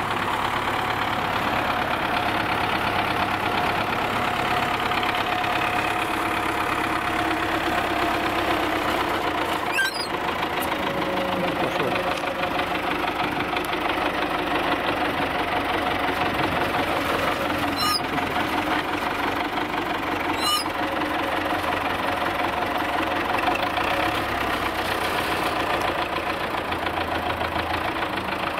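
Diesel engine of an MTZ Belarus wheeled tractor running steadily as the tractor drives, its pitch dipping slightly about a third of the way through. A few light clicks sound over it.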